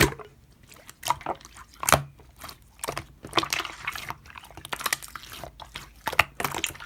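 Slime being squished and poked by hand, making irregular wet clicks and pops.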